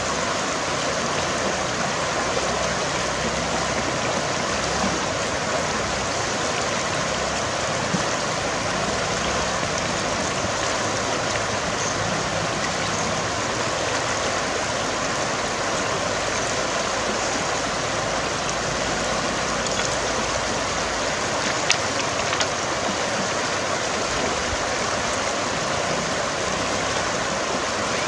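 Shallow river running over a stony bed, a steady rushing of water, with a couple of brief sharp clicks.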